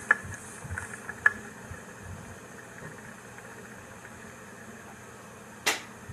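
Quiet woodland background hiss with two sharp clicks in the first second and a half, and a brief louder rustle near the end.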